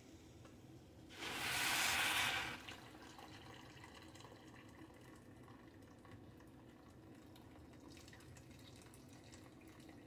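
Hot water poured from a kettle onto fried rice and quinoa in an electric rice cooker's pot. A loud hiss comes about a second in and lasts about a second and a half, then a quieter pour goes on.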